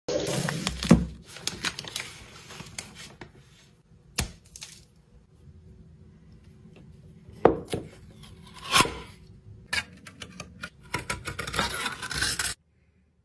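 Close-up handling of food packaging: the paper-and-foil wrapper of a chocolate bar crinkling, then a few separate sharp clicks and taps as a round tin lid is handled, and a busier stretch of clicking and crinkling near the end that cuts off suddenly.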